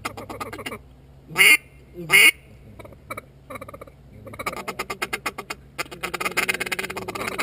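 Duck quacking: two loud, close quacks about a second and a half and two seconds in, then a fast, rapid chatter of quacks building up over the last few seconds.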